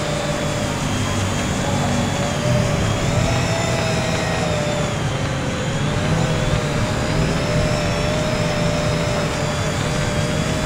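WLtoys V686G quadcopter's brushed motors and propellers buzzing in flight, the pitch wandering up and down as the throttle changes, over a steady low rumble.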